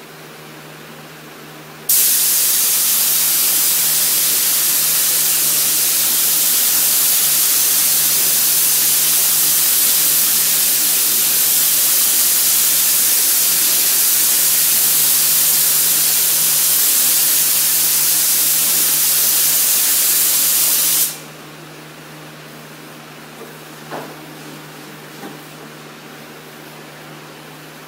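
Compressed-air paint spray gun spraying primer in one long trigger pull: a loud, steady hiss that starts sharply about two seconds in and cuts off abruptly nearly twenty seconds later. A faint steady hum lies underneath, with a small click or two near the end.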